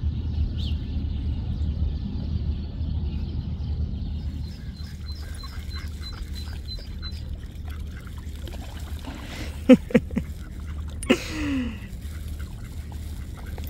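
Hungarian vizsla wading in shallow water, with a few small splashes and sharp knocks around ten seconds in, and a duck calling once just after. A steady low rumble of wind on the microphone runs underneath, and a quick series of faint high ticks, like a small bird calling, comes about five seconds in.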